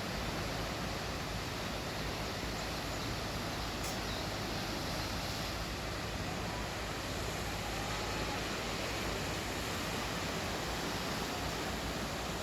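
Sea waves breaking on the shore, a steady rush of water that stays even with no distinct surges.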